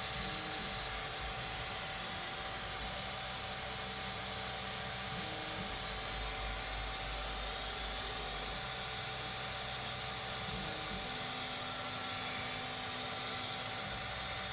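Stepper motors on a Formbot Troodon CoreXY 3D printer whine as they drive the print head across the bed in a series of moves. Each move has its own steady pitch, and the whine changes every few seconds as one move gives way to the next. Underneath is the constant hiss and hum of the printer's cooling fans.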